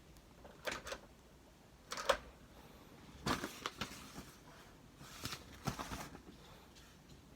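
Bursts of sharp mechanical clicks and clacks from a door deadbolt lock being handled and worked, in four groups about a second or so apart.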